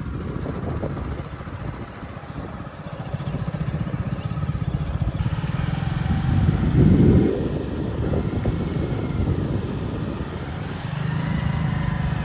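Small two-wheeler engine running steadily while being ridden, heard from on board, with a fast low throb and road and wind noise; it swells louder about seven seconds in.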